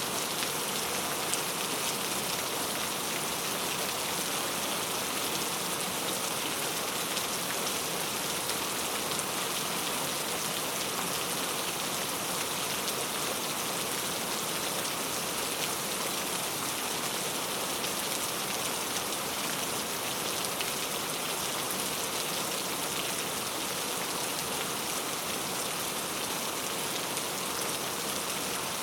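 Steady rainfall, an even hiss of many drops falling on a surface, with fine individual drop patter.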